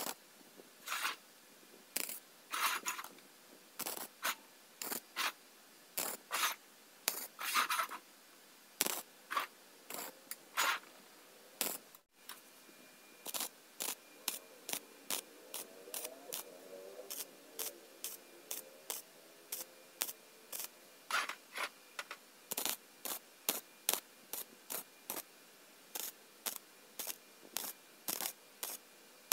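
Stick (arc) welding on hollow square steel tube: a rapid series of short crackling bursts, about one or two a second, as the joints are tack-welded.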